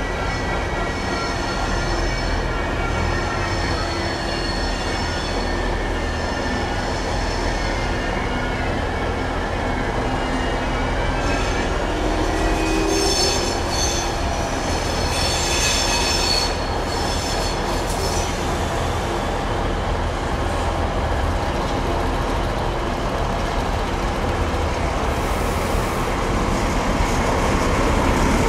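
A train moving slowly through the station, its wheels squealing on the rails in high whistling tones over a steady low rumble. About halfway through the squeal grows brighter, mixed with clicks from the wheels on the track.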